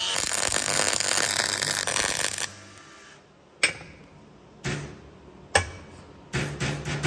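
Angle grinder with a wire cup brush scouring welded steel, rough and loud for about two and a half seconds, then stopping. Four or five sharp metallic knocks follow, several close together near the end.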